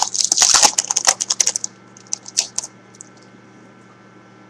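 Trading card pack wrapper crinkling and tearing as the pack is opened: a rapid crackle that stops about a second and a half in, followed by a few light ticks.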